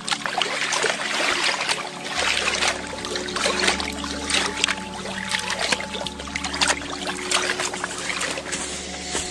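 Small waves lapping and splashing against a rocky lake shore, a steady wash with many irregular little slaps.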